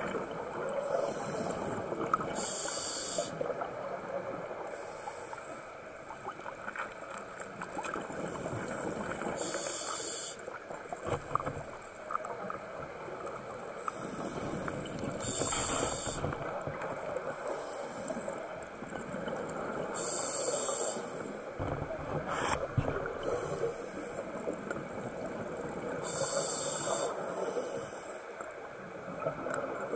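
Scuba diver breathing through a regulator, heard underwater through the camera housing: a short hiss every five to six seconds, five in all, over a steady rushing noise.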